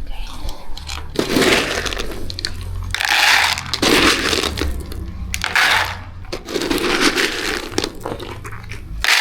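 Dry cat kibble rattling as it is poured into feeding bowls, in several separate pours about a second long each.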